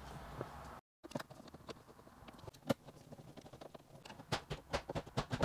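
Quiet, scattered clicks and light taps of a screwdriver and screws on hard plastic dashboard trim as a cover's screws are put back in.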